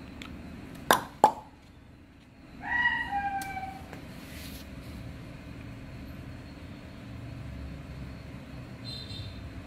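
Two sharp clicks in quick succession, then a rooster crowing once in two parts, over a steady low hum.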